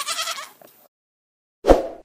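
A lamb bleats once, briefly. Near the end there is a short loud burst.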